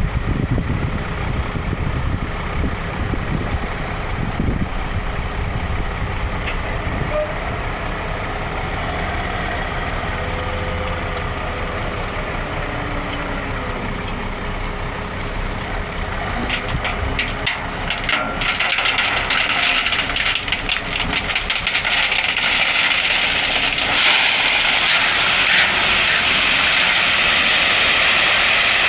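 Heavy vehicle machinery noise: a steady low engine rumble. About two-thirds of the way through, a loud steady hiss with crackling and rattling takes over.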